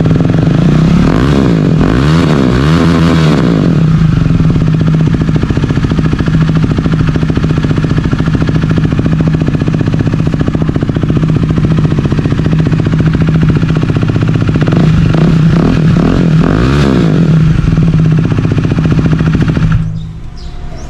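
KTM 390 Duke's single-cylinder engine idling through an aftermarket slip-on exhaust, with short throttle blips that rise and fall in pitch a second or so in and again about two-thirds of the way through. The sound cuts off abruptly near the end.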